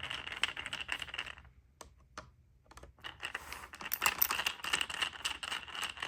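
Screwdriver loosening the small Phillips screws on a steering wheel's cruise-control stalk: a rapid run of fine clicking and rattling, stopping for about a second and a half, then starting again.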